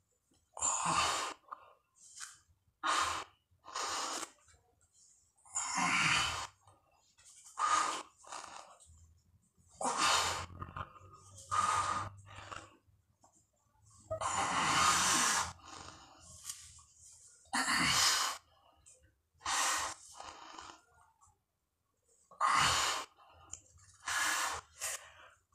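A man breathing hard and forcefully in and out while doing slow push-ups, a loud breath every second or two with short quiet gaps. He is well over a hundred reps into one long set and straining.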